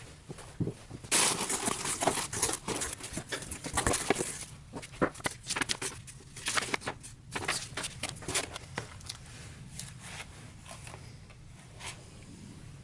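Irregular rustling, crinkling and light clicks of parts and packaging being handled, busiest in the first two-thirds and thinning out toward the end.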